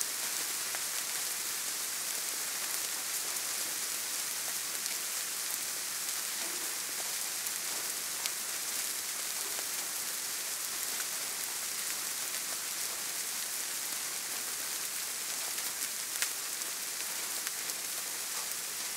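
Soft rain falling steadily, an even hiss of rainfall with now and then a sharper tick of a single drop.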